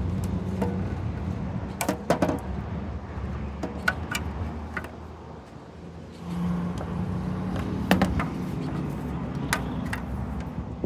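Motor vehicle engine running with a low steady hum that fades about halfway through and swells back again, with a few sharp clicks and taps scattered over it.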